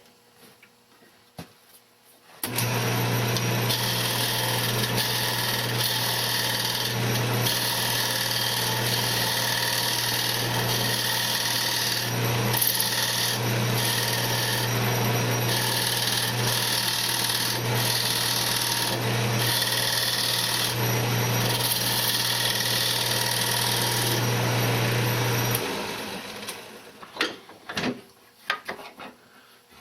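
Wood lathe with a turning tool cutting into the spinning wooden frame blank: a steady low hum under a rough cutting hiss that swells and eases as the tool is pushed in and drawn back. It starts a couple of seconds in and dies away a few seconds before the end, leaving a few light clicks.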